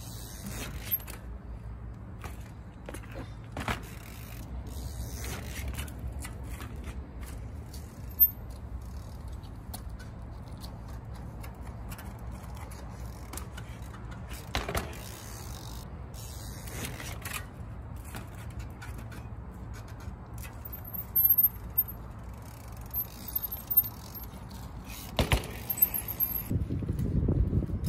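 Yeti all-mountain bike being hopped and balanced in trials riding: chain rattle, mechanical clicks and sharp knocks of the tyres landing, with brief high squeaks in the last several seconds.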